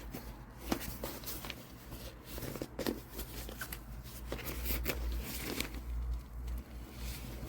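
Handling noise: scattered light clicks and rustles over a low rumble that grows stronger in the second half.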